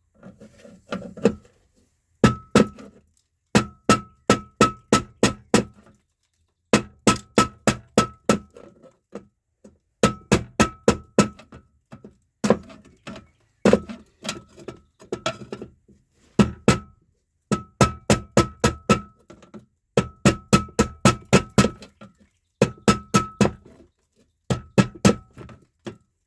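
Hammer striking the metal housing of an old 240-volt safety switch box in quick bursts of several blows, about four a second, with short pauses between bursts. Each blow rings with a metallic clink.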